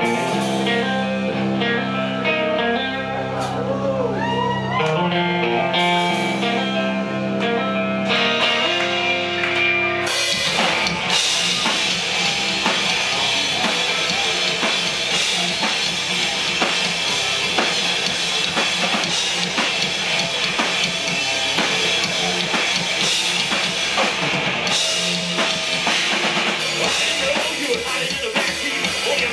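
A live rock band playing amplified. For about the first ten seconds there are held, ringing guitar chords with a few bent notes, then drums and the full band come in with a steady beat.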